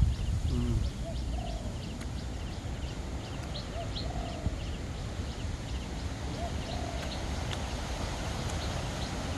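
Outdoor ambience with animal calls: a rapid high chirping that repeats throughout, and a lower rising-and-falling call heard about three times, over a steady low rumble.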